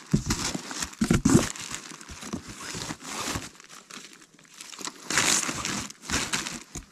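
Plastic packaging bags crinkling and rustling as they are handled, in irregular bursts with a few sharp crackles.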